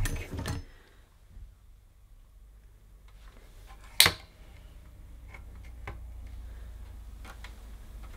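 Hands working a Kirby Classic III upright vacuum cleaner with its motor off: a few knocks at the start, then one sharp click about four seconds in as the suction relief valve on the motor housing is operated, followed by a few faint small clicks.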